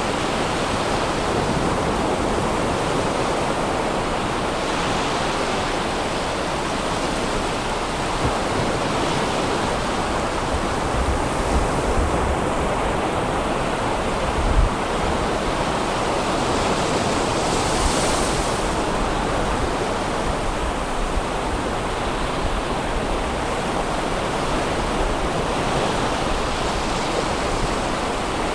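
Sea waves breaking and washing up a sandy beach: a steady surf noise, with a few brief low thumps about halfway through.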